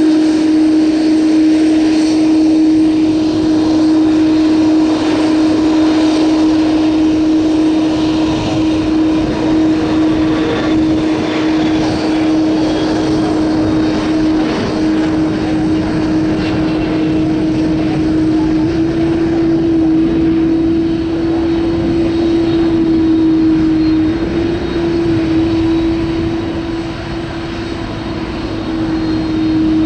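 Airliner jet engines running, a loud steady rumble with a strong droning tone that shifts slightly in pitch twice; the level dips briefly near the end, then rises again.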